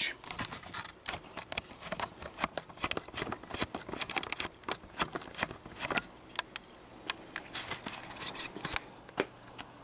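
Saw chain links clicking and rattling against the bar as the chain is moved around it in the vise: many quick, irregular metallic clicks that thin out near the end.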